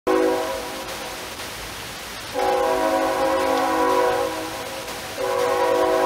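A horn sounding a chord of several steady tones in long blasts: one right at the start that fades within half a second, another about two and a half seconds in, and a third starting about five seconds in.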